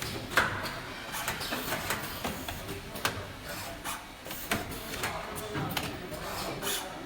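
Automated tube-processing machinery at work: irregular mechanical clicks and knocks over a steady machine noise, the sharpest knock about half a second in.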